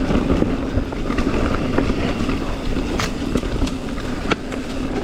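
Mountain bike riding fast down a rocky trail: a steady rush of tyre and wind noise on the mic, with sharp clacks here and there as the bike jolts over rocks, the loudest in the second half.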